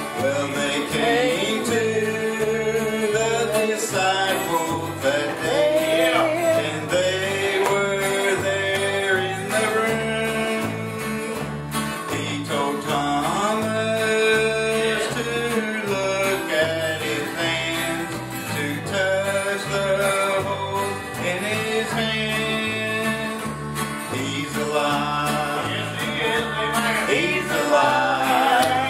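Live gospel song: a man singing over strummed acoustic guitar, with an electric bass playing a steady low line underneath.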